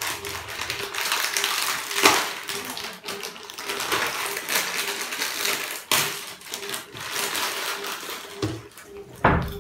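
Lay's potato chip packets crinkling and crackling as they are torn open and handled, an irregular run of sharp plastic crackles with louder snaps about two seconds in, near six seconds and near the end.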